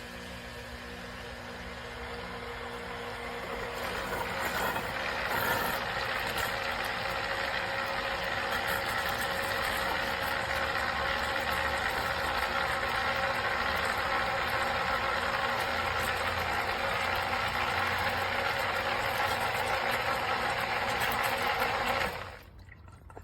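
Green Expert 1/3 HP submersible sump pump running with water rushing. The sound builds over the first few seconds, holds steady, then cuts off suddenly near the end as the pump shuts off.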